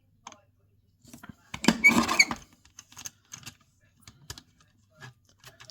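Cardstock being handled and cut on a mini paper trimmer: scattered light clicks and taps, with one louder scraping stroke of under a second about two seconds in.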